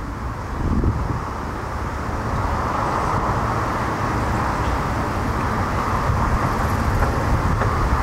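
Outdoor ambience: wind buffeting the microphone in low gusts, with a steady hiss of road traffic that swells about two seconds in and stays.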